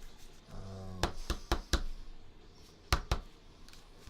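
Sharp knocks or taps on a hard surface: four in quick succession about a second in, then two louder ones close together near three seconds, after a brief murmur of a voice.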